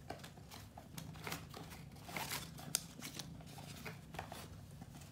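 Faint, irregular rustling and crinkling as plush pizza-topping cat toys are handled and set down on a crinkly plush pizza mat in a cardboard box.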